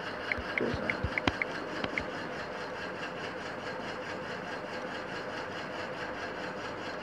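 Key clicks from a phone's on-screen keyboard as a search is typed: a quick run of short ticks over the first two seconds, with one sharper tap about a second in. After that there is only a steady background hum.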